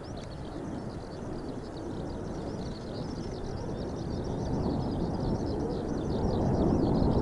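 Mitsubishi F-2 fighter's single turbofan engine rumbling as it approaches on a simulated flame-out approach, growing steadily louder. Many short, high chirps, likely birds, run over it throughout.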